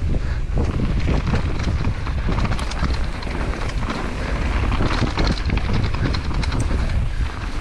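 Wind buffeting a helmet-mounted action camera's microphone as a downhill mountain bike rolls fast down a dirt trail, with the tyres on dirt and the bike rattling in dense quick clicks.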